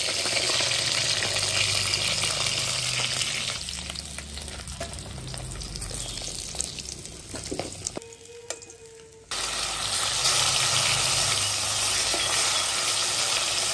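Pieces of silver carp frying in hot oil in a kadai, a steady loud sizzle with a metal spatula scraping and turning them. The sizzle softens for a few seconds past the middle, then comes back loud about nine seconds in.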